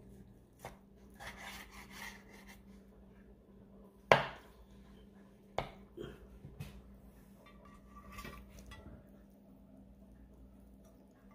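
A carving knife slicing roast pork shoulder on a wooden cutting board, with scraping and a few sharp knocks and clinks from the blade and slices against the board and a ceramic platter. The loudest knock comes about four seconds in.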